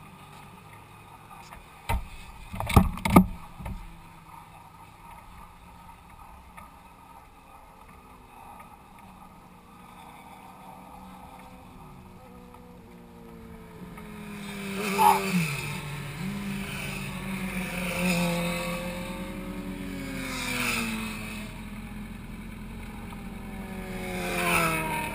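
Motorcycles passing on a race track, several in turn from about halfway through, their engines rising and falling in pitch as they go by. A few sharp knocks sound near the start.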